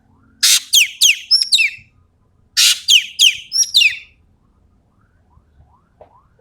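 Ekek keling singing two loud, near-identical 'tembakan' bursts, each a harsh opening note followed by three or four sharp, falling whistled notes, the second burst about two seconds after the first.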